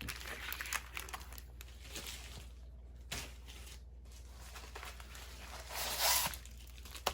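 Plastic packaging rustling and crinkling as diamond-painting kits are handled, with a louder rustle about six seconds in.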